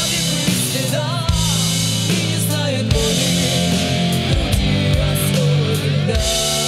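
Live rock band playing: two female voices singing into microphones over electric guitar and bass guitar.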